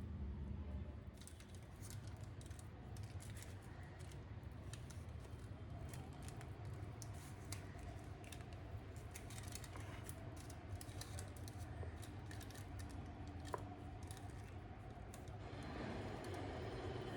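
Rapid, irregular light clicks and taps from small handling work, over a low steady hum.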